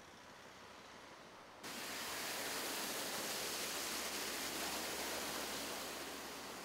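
Steady, even hiss of outdoor noise that starts abruptly about a second and a half in, after fainter background noise.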